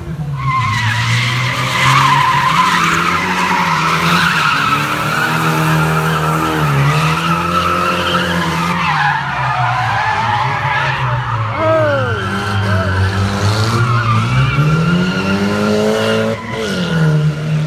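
A car drifting: the engine revs up and down again and again, and the tyres squeal continuously as they slide.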